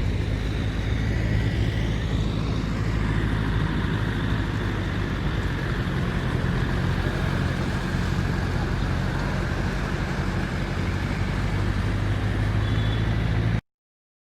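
A motor vehicle engine running steadily as a low hum over a general noisy wash of sound; it cuts off suddenly near the end.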